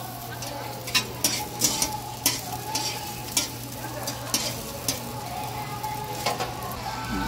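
Meat strips sizzling on a hot flat-top griddle, with repeated sharp clicks and scrapes of metal tongs tapping and turning the pieces.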